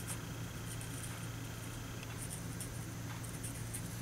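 Faint scratching of a marker tip rubbing on cardstock in several short runs of strokes, colouring in small stamped flowers, over a low steady hum.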